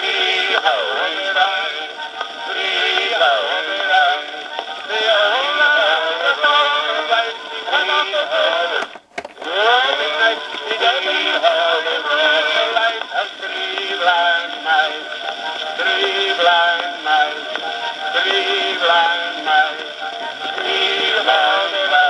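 A small 78 rpm shellac children's record playing acoustically through a hand-cranked plastic Phonette gramophone's soundbox: a sung tune, thin and mid-range like an old recording, at a speed set by turning the handle by hand. The sound drops out briefly about nine seconds in, then the singing resumes.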